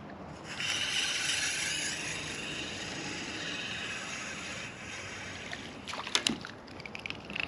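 Small spinning reel being cranked steadily for about four seconds, retrieving the jig with a small crappie on, then a few sharp clicks near the end.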